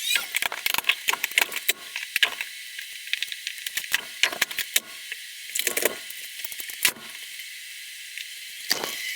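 Irregular light clicks and rattles of small hard objects being handled, in clusters over a steady hiss.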